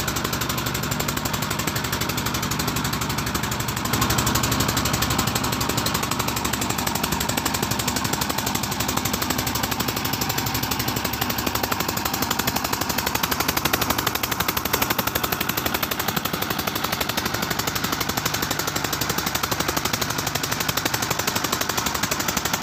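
Fishing boat's inboard engine running steadily under way, a fast even pulsing, with wind and water rushing past the hull.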